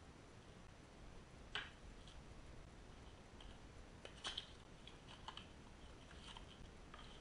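Faint handling clicks of a small metal hot-air rework nozzle and its cardboard box, amid near silence: one sharp click about a second and a half in, a quick cluster of clicks around four seconds in, then a few lighter ticks.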